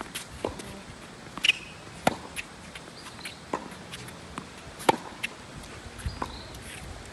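Tennis ball being struck by rackets and bouncing on the court: a string of sharp pops a second or so apart, the loudest about five seconds in.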